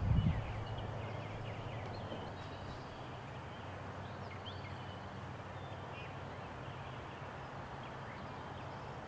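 A steady low machine hum, with faint high bird chirps now and then.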